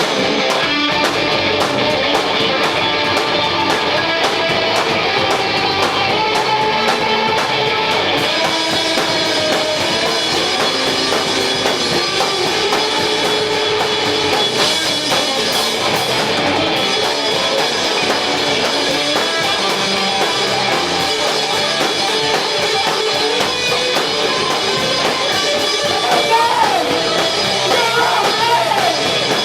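A rock band playing live at a steady loud level: electric guitar and drum kit, with singing.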